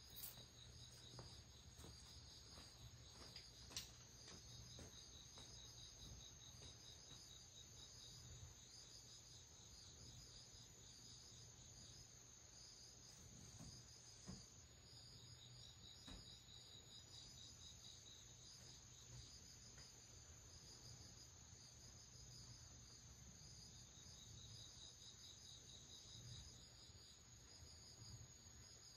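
Faint chorus of insects in a garden: a steady high-pitched whine with a rhythmic chirping pulsing just beneath it, unbroken throughout.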